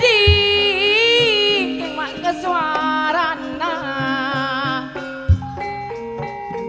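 Kuda kencak folk ensemble music: a bright, wavering, ornamented melody over held tones and percussion, with a low drum thump near the start and another about five seconds in.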